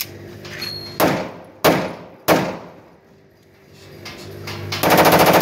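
A pistol firing three single shots a little over half a second apart, then, near the end, a rapid automatic burst.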